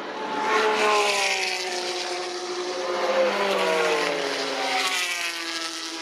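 Endurance race cars, Le Mans prototypes among them, running at speed on the circuit. Several engine notes overlap and slide in pitch as the cars go by, loudest about a second in and again about three seconds in.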